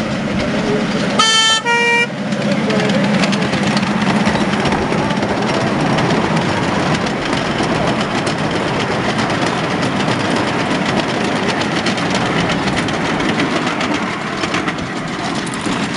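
A miniature railway locomotive's horn sounds two short toots about a second in. A train of passenger coaches then rolls past with a steady rumble and a dense clicking rattle of wheels on the rails.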